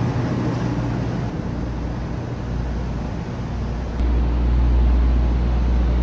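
Steady low rumble and hum inside a Shinkansen passenger car. It becomes louder and deeper at a cut about four seconds in.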